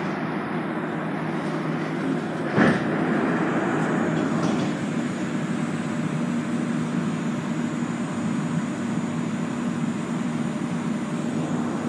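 Inside the car of a Montreal metro Azur train standing at a station with its doors open: the steady hum of the stopped train. A single sharp knock comes about two and a half seconds in, with a few faint ticks shortly after.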